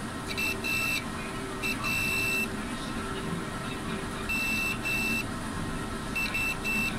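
Multimeter continuity buzzer beeping as its probes touch a MOSFET on a motherboard: four short bursts of a high beep, some broken into quick stutters as the probe contact makes and breaks. The beep shows continuity across the MOSFET, the sign that it is shorted.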